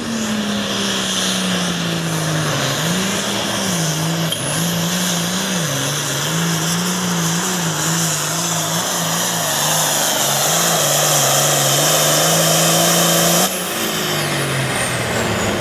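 Diesel engine of a modified red International pulling tractor running flat out under heavy load as it drags the weight-transfer sled down the track, its note dipping and recovering several times as the load changes. Near the end the sound drops suddenly in level and pitch.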